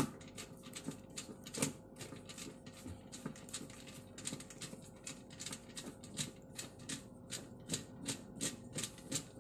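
A tool clicking quickly and regularly, about two to three clicks a second, as it turns out the centre screw holding a top-loading washing machine's pulsator.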